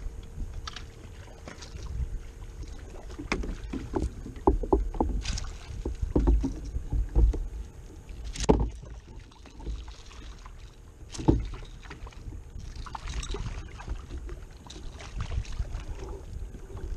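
Water slapping and lapping against the hull of a Hobie Pro Angler fishing kayak, with a low wind rumble on the microphone. Scattered knocks and clicks from the rod and gear, the sharpest about eight and a half seconds in and again about eleven seconds in.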